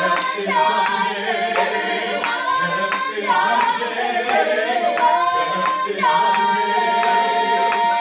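Contemporary gospel vocal ensemble singing a cappella in close harmony, holding long chords, over a steady beat of sharp percussive clicks.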